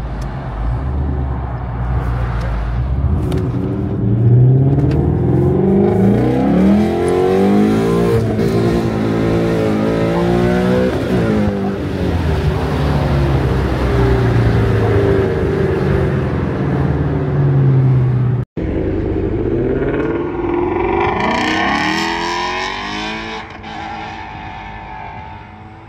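Car engines revving hard, their pitch climbing and falling repeatedly, with more than one engine overlapping in the middle. The sound cuts out completely for an instant about eighteen seconds in.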